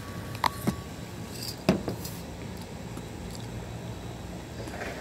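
A steady low hum with three short sharp clicks, about half a second, just under a second and nearly two seconds in.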